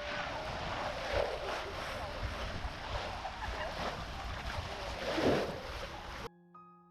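Wind buffeting the microphone over the rush of the sea and the ferry under way: a steady, noisy rumble. It cuts off suddenly near the end, and soft piano music begins.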